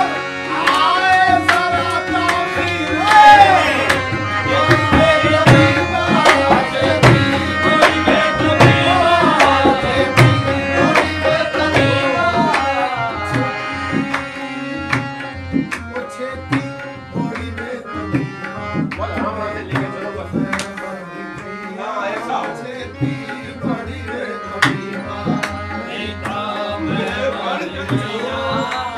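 Qawwali music: tabla drumming in a steady rhythm under a harmonium melody. It gets quieter about halfway through.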